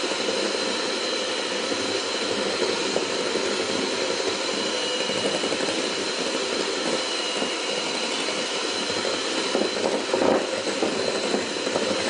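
Electric mixer running steadily with a whine, its beaters churning cream cheese and butter in a bowl.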